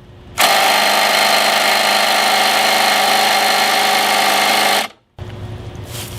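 Impact wrench hammering on an over-tightened table saw blade nut, starting about half a second in and cutting off suddenly just before five seconds; it fails to break the nut loose.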